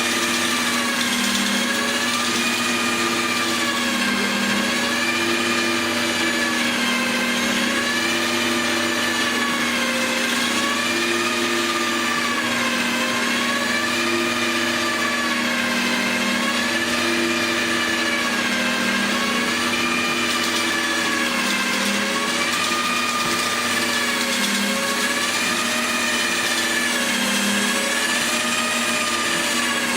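Electric drill driving a concrete 3D printer's extruder, running continuously with a steady hum; its pitch rises and falls in a slow, even cycle about every two and a half seconds.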